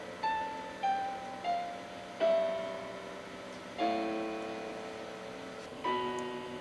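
Background piano music: three single notes stepping down near the start, then slow, sustained chords that fade between strikes.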